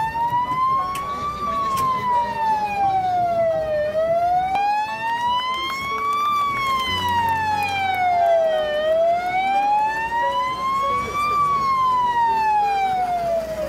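Fire truck siren in a slow wail, its pitch rising and falling smoothly, one full cycle about every five seconds.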